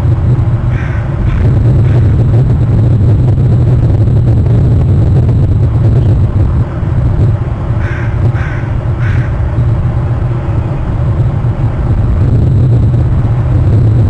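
Crows cawing: a few caws about a second in and three quick caws around the middle, over a steady low rumble.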